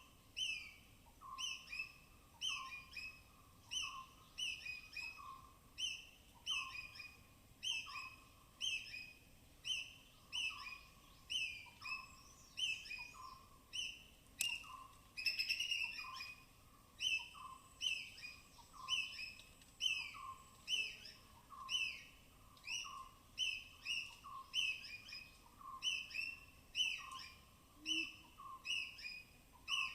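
A forest squirrel's alarm chatter: one sharp, falling chirp repeated very evenly, about one and a half times a second, with a single sharp click about halfway through.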